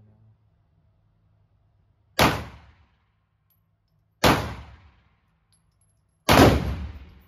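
Canik TTI Combat 9mm pistol firing three single shots about two seconds apart, each followed by a short ringing echo off the range walls.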